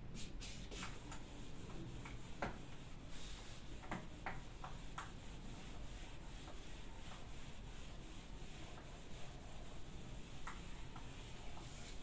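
Faint rubbing of a handheld eraser wiping marker writing off a whiteboard, with scattered light knocks and ticks.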